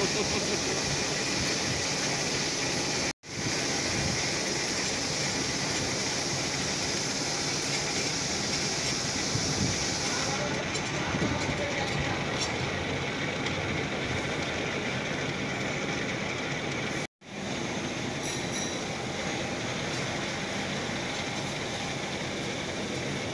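Heavy metal-turning lathe running steadily, a continuous mechanical rumble and rattle. The sound cuts out briefly twice, about three seconds in and again near seventeen seconds, and its hiss gets softer about ten seconds in.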